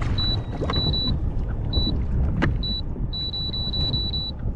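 Short, high electronic beeps from a handheld device's buttons being pressed: a few single beeps, then a quick run of them about three seconds in. Under them is a steady low rumble of wind on the microphone.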